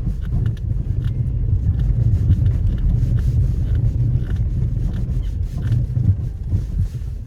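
Nissan X-Trail T30 with the 2.0 petrol engine driving off-road: a steady low rumble of engine and tyres, with scattered small knocks and ticks throughout.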